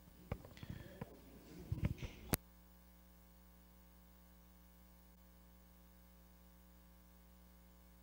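Handheld microphone handling noise: a few faint knocks and rustles over the first two seconds, ending in one sharp click. After that there is near silence with a faint steady hum.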